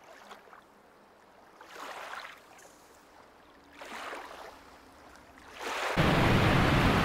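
Two soft, short rustles in a quiet room. About six seconds in, a loud steady hiss cuts in suddenly and keeps going.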